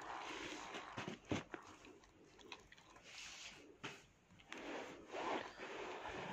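Close rubbing and scraping noises with a few sharp clicks, from a dog mouthing a plush toy and a hand rubbing at its muzzle.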